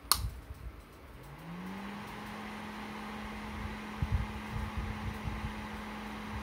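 A sharp click as the power is switched on, then a mains-powered axial cooling fan spins up with a rising hum and settles into a steady hum and rush of air.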